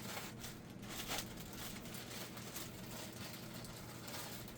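Plastic bag rustling and crinkling as a built Lego model is worked out of it, with a few sharper crinkles near the start and about a second in.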